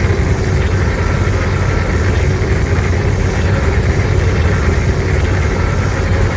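Godzilla monster sound effect: a loud, steady, deep rumble with no rise or fall in pitch.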